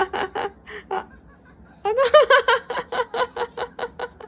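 Toddler laughing in short, evenly repeated high-pitched 'ha' bursts: a few at first, a pause, then a long run of about four a second from about two seconds in.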